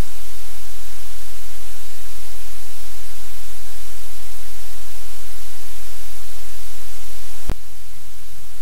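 Loud steady static hiss, with one sharp click about seven and a half seconds in, after which the hiss is slightly quieter.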